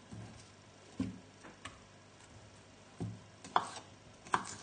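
A kitchen knife tapping on a chopping board in a handful of irregular, light knocks as cooked potatoes are roughly sliced into discs.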